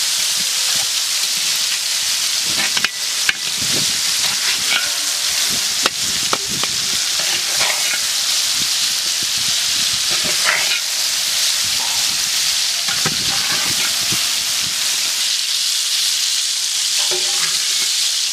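Whole tomatoes, garlic cloves and dried red chillies frying in hot oil in a large metal pot, a steady sizzle, stirred with a metal ladle that knocks against the pot a few times.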